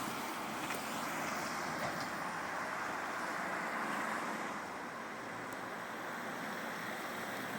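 Road traffic noise: a steady hiss of vehicles and tyres on the road, swelling slightly and easing off partway through.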